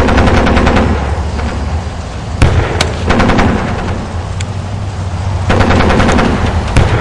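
Battle sound effect of trench warfare: three bursts of rapid machine-gun fire, each about a second long, with single sharp gunshots between them and a steady low rumble underneath.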